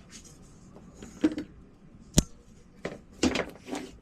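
Hands handling a ribbon cable and its connector: a few short rustles and scrapes, with one sharp click a little over two seconds in.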